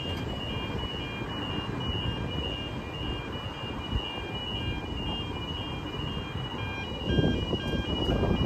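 Railway level crossing warning bell ringing, an evenly repeated electronic ding, while the boom gates lift, over steady road traffic that grows louder near the end.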